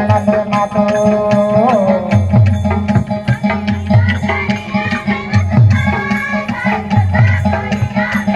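Odia tribal folk dance music: a melody, with some singing, over a repeating low drum pattern.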